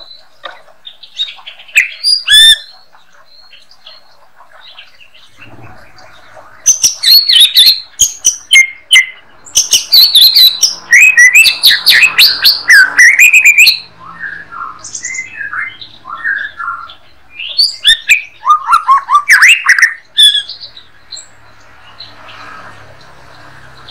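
White-rumped shama (murai batu) singing: loud bursts of rapid, varied whistled phrases, the longest running about four seconds, with quieter calls between the bursts.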